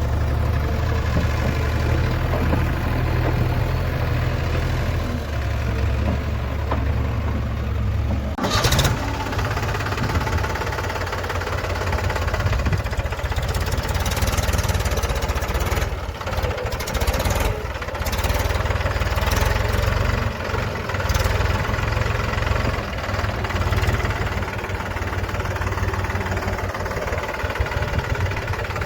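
Diesel engine of a working machine running steadily, with an abrupt change in its sound about eight seconds in, after which it runs rougher with occasional sharp knocks.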